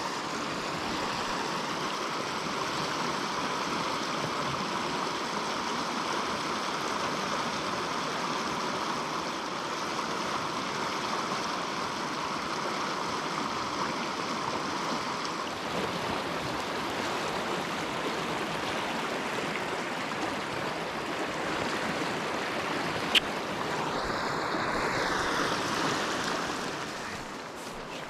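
River water running steadily over a shallow stretch, an even rushing and rippling. A single sharp click sounds about two-thirds of the way through, and the rush swells briefly near the end before falling away.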